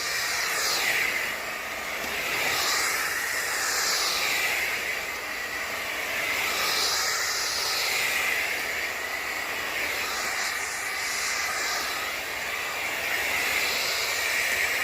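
Hoover ONEPWR FloorMate Jet cordless wet floor cleaner running on tile, its motor and brush roll giving a steady hissing whine. The sound swells and eases about every two to three seconds.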